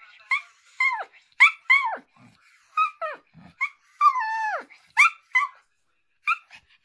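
A Pomeranian "talking": a run of about ten short whining yips and howl-like calls, most sliding down in pitch at the end, with one longer drawn-out call about four seconds in. It is demand vocalising, asking to go outside.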